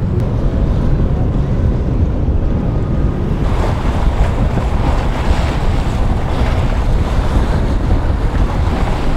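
Wind buffeting the microphone: a heavy, flickering low rumble, with a brighter, hissing wash of open water and wind joining about three and a half seconds in.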